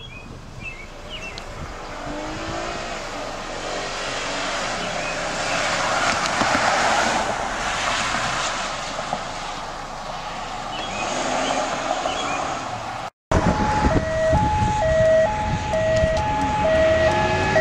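Road traffic passing, swelling to its loudest as a vehicle goes close by about seven seconds in. After an abrupt break, an emergency vehicle's hi-lo siren alternates steadily between two tones over the traffic.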